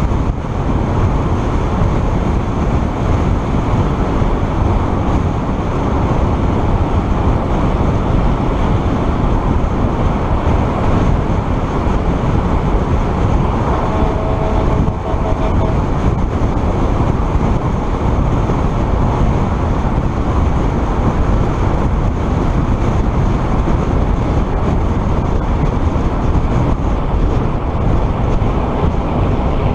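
Steady rush of wind and road noise from a vehicle driving at about 67 km/h on a paved highway, heaviest in a deep rumble, as picked up by a vehicle-mounted camera's microphone.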